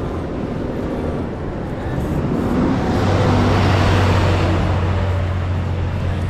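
Road traffic: a motor vehicle going by, its noise swelling about three seconds in and then easing off, with a steady low engine hum.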